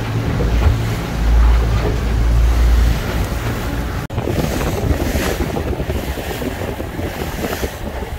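Offshore fishing boat with twin 200 hp outboards running at trolling speed through open-ocean swell: heavy wind buffeting on the microphone over the rushing wash of the wake and hull, cut abruptly about four seconds in to a more splashy rush of water.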